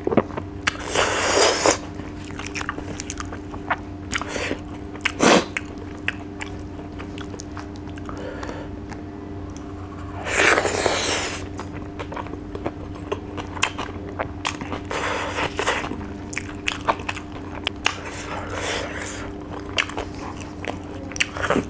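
Close-up eating sounds of a man eating rice and fish by hand: wet chewing and lip smacks with many small clicks, and a few louder bursts as handfuls of rice go into his mouth, the loudest about ten seconds in.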